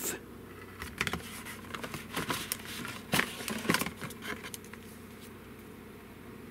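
Handling of a cardboard carton of canned corned beef: the flaps being opened and a metal can pulled out, giving scattered rustles, light clicks and taps over the first four seconds or so.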